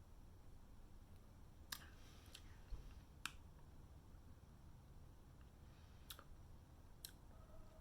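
Near silence with a handful of faint, sharp clicks, spaced irregularly about a second apart.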